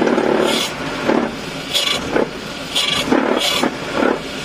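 UAZ 452's 2.5-litre petrol four-cylinder engine turning over and catching on a newly fitted SU carburettor, its throttle worked by hand, so the sound comes and goes in uneven bursts.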